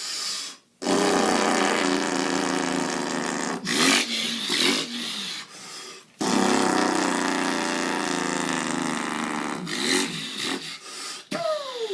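A man imitating with his voice a semi truck's Detroit diesel coming down a big hill: two long, drawn-out engine drones with a short pause between them, then a short falling tone near the end.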